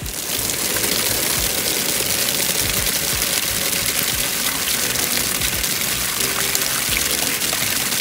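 Steady spray of water from a garden hose or sprinkler, splashing into a black rubber pan and against a wire fence. It comes on sharply in the first half second and then runs evenly.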